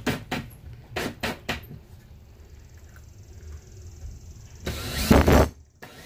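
Handling noise from a cordless drill, a pine workpiece and a metal corner clamp: a few sharp clicks and knocks in the first second and a half, then a louder scraping bump about five seconds in.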